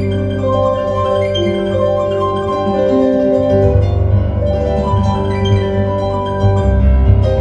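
Solo piano improvising, with held chords ringing over deep bass notes that change every few seconds.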